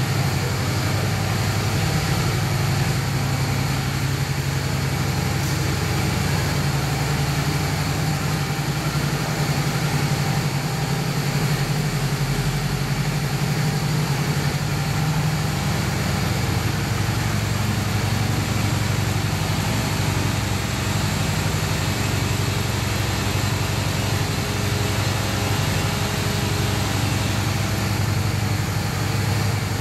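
Honda Shadow 600's V-twin engine idling steadily, a low, even pulsing note.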